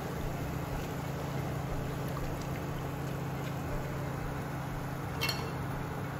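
Hot cooking oil sizzling and bubbling steadily in a small saucepan where fries are deep-frying, over a steady low hum. A brief sharp click about five seconds in.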